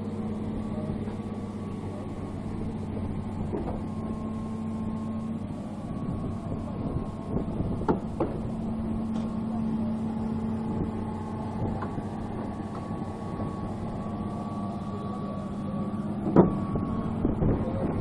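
Excavator engine running steadily, with a few sharp knocks, the loudest about sixteen seconds in.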